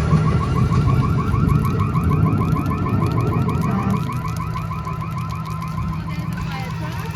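Electronic alarm or siren sound warbling in rapid, even chirps several times a second, over a low rumble that drops off about four seconds in.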